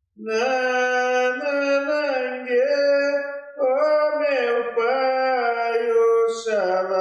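A man's solo voice singing an Umbanda ponto, unaccompanied, in long held and slowly sliding notes, with a brief breath about three and a half seconds in.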